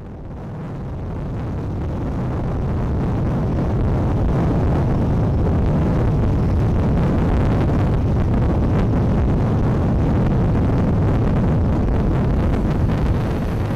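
Road and wind noise of a moving vehicle on a highway, heard from on board: a steady low rumble that fades in over the first few seconds.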